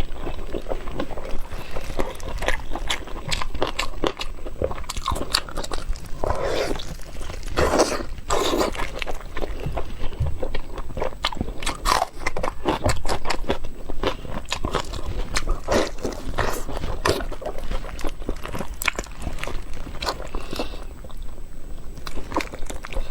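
A person eating close to the microphone: biting and chewing with many irregular wet clicks and crunches, and a few longer smacking sounds.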